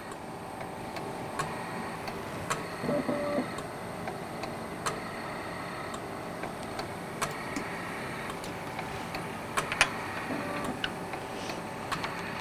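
Steady low hum of a lab instrument, with scattered small clicks and taps from a glass microsyringe being handled and its needle pushed into an HPLC manual injection valve.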